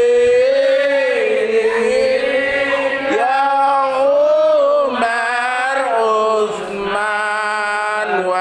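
A group of voices singing an Arabic devotional song in praise of the Prophet in unison, with long drawn-out notes that glide slowly up and down.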